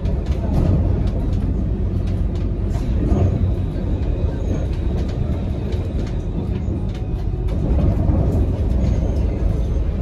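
Alstom Citadis 302 tram heard from inside the passenger area while running along the track: a steady low rumble of wheels and running gear, with light scattered clicks and rattles.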